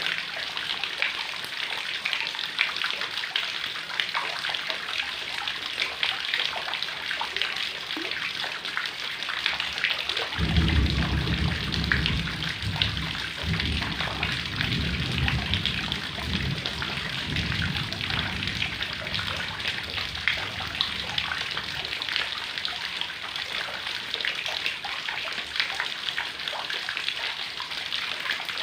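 Heavy rain falling steadily, a dense patter of drops. About ten seconds in, a low rumble comes in underneath, lasts some ten seconds and fades out.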